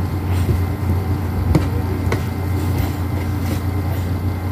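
A steady low hum, with a few light taps about one and a half and two seconds in from a spoon chopping playdough on a plastic play table.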